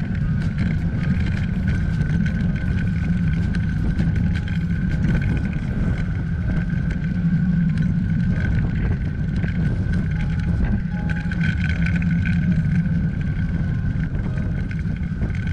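Wind rushing over a bike-mounted camera's microphone and tyres hissing on a wet road as a road bike is ridden fast downhill, with a steady high whine running through the rumble.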